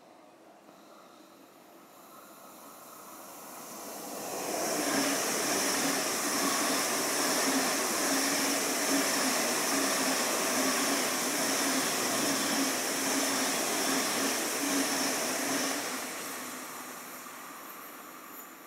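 A train passing through the station: the noise builds, holds loud and steady with a hiss for about eleven seconds, then fades away.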